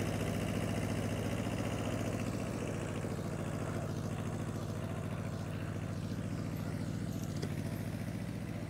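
Small compact tractor's engine running steadily as it pulls a plow cutting a drainage trench through sandy soil, growing slowly fainter as the tractor moves away.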